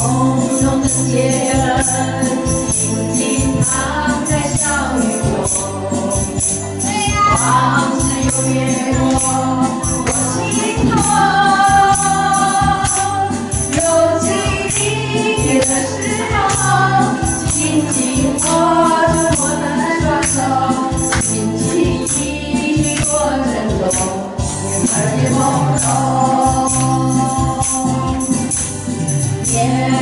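Two women singing a song into corded handheld microphones over a karaoke backing track with a steady beat, played loud through a PA speaker.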